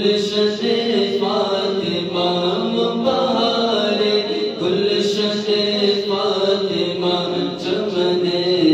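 Solo male voice singing an Urdu manqabat in praise of Khwaja Moinuddin Chishti, amplified through a microphone, with long wavering held notes.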